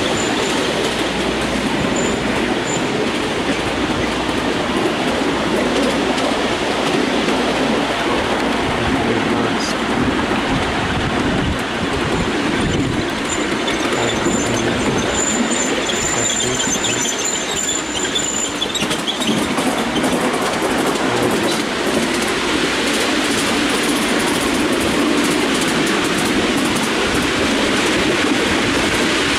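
Miniature railway train on the move: a steady rumble and clatter of the carriage wheels on the rails, with a thin high wheel squeal for a few seconds around halfway through.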